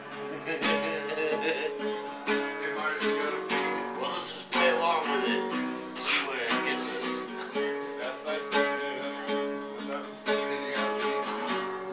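Acoustic guitar strummed in a steady rhythm, chords ringing and changing, as an instrumental break in a song.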